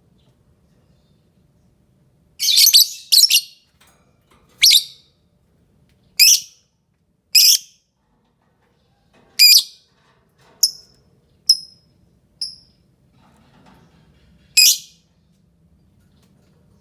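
Lovebird giving about ten short, shrill chirps, one at a time and a second or more apart, starting a couple of seconds in; a few in the middle are fainter and thinner.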